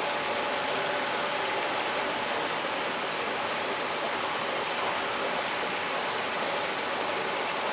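Water running steadily into hatchery incubation trays of rainbow trout eggs, an even rushing splash that does not change.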